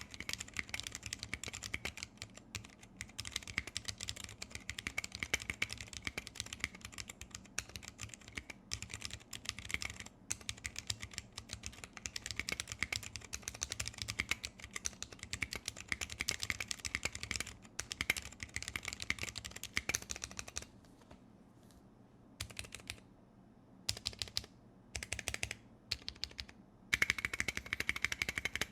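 Fast typing on a 60% keyboard with vintage brown Alps switches, PTFE-lubed, in a brass plate under PBT keycaps: a dense stream of keystroke clicks. About two-thirds of the way in it breaks into short bursts with pauses, then picks up to a dense run again near the end.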